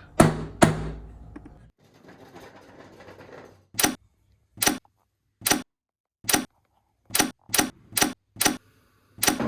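Two sharp knocks at the start, then a run of short, sharp clicks or taps, about one a second at first and coming quicker near the end.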